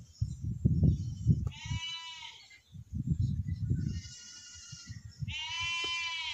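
Goats bleating in the distance: three long bleats, the last the loudest, over bursts of low rumbling noise.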